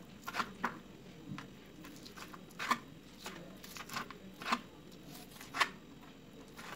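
Kitchen knife cutting through crisp deep-fried chicken pieces, the blade knocking on a plastic cutting board in about nine short, sharp, irregular cuts.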